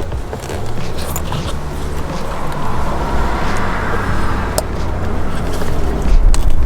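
Steady low hum of a running vehicle engine, with a couple of sharp clicks about four and a half and six seconds in.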